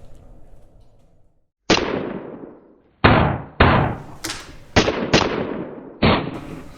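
A series of about six sharp, loud bangs, irregularly spaced, starting about a second and a half in, each dying away with an echoing tail.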